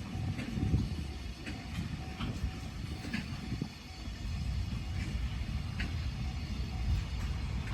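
Train running on the rails: a steady low rumble with scattered short, sharp clicks and squeaks from the wheels.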